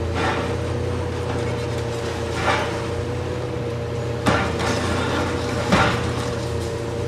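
A steady machine hum with about five sharp knocks at irregular intervals.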